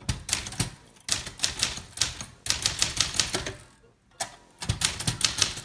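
Manual typewriter being typed in quick runs of key strikes, several a second, with short breaks between the runs.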